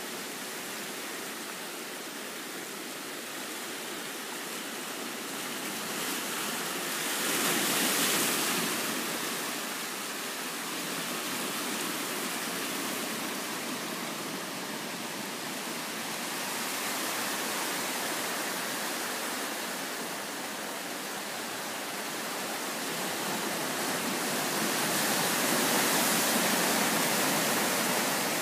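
Sea surf breaking and washing over rocks: a steady rush of water that swells louder twice, about a quarter of the way in and again near the end.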